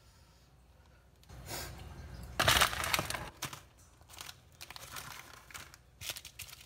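Plastic instant-noodle sauce packets crinkling and being torn open, in irregular bursts of rustling with a few sharp crackles; the loudest burst comes about two and a half seconds in, after a quiet first second.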